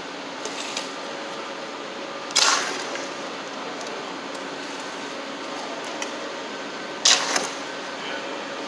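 Hand scoop scraping up fresh concrete and tipping it into a metal measure: two short, loud scrapes about five seconds apart, with a few light clicks before the first, over a steady mechanical hum.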